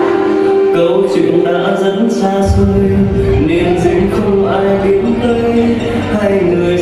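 Music with a singing voice over sustained instrumental tones; a deep bass comes in about two and a half seconds in.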